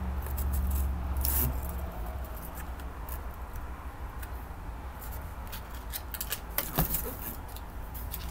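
Handling of a small cardboard jewellery box of nose rings being opened, with scattered clicks, taps and rustles of the packaging and small metal pieces, and one sharper click a little before seven seconds. A low rumble in the first two seconds, as the box is moved about close to the microphone.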